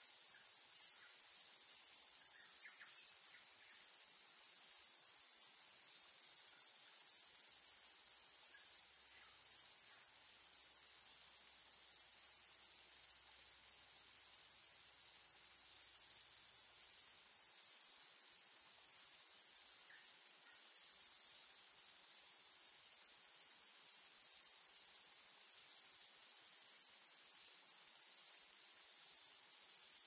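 Dense chorus of insects: a steady, high-pitched shrill that never lets up. A few faint bird chirps come through now and then.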